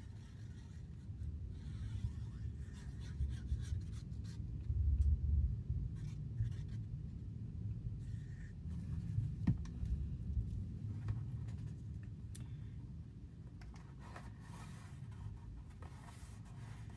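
Hands working paper on a tabletop: soft rubbing and scratching as liquid glue is applied to a strip of patterned paper and the strip is pressed and smoothed onto a paper box. Dull bumps against the table, and a sharp click about nine and a half seconds in.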